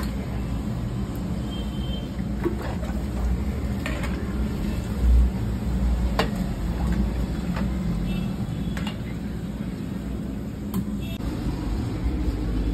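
Street noise: a steady low rumble of traffic with scattered clicks and knocks, and one louder thump about five seconds in.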